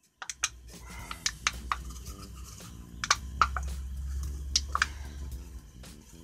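Sharp metallic clicks and scrapes from a small metal cup being handled, about a dozen irregular clinks, some ringing briefly, over a low steady hum.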